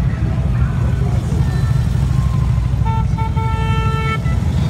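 Motorcycle engines rumbling steadily. About three seconds in, a horn sounds two short beeps, then a longer one.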